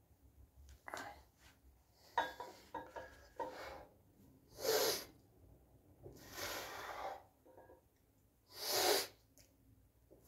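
A man's forceful exhalations through the mouth with the effort of dumbbell lateral raises: three loud breaths about two seconds apart. In the first few seconds, a few clicks and knocks from the dumbbells being picked up.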